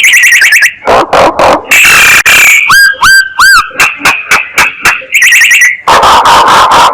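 Myna calls from a decoy recording used to lure mynas: a rapid, unbroken string of sharp clicks, short arched whistles and harsh, rasping screeches.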